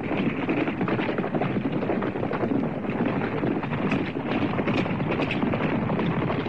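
Hoofbeats of several horses galloping, a fast, dense patter of hooves.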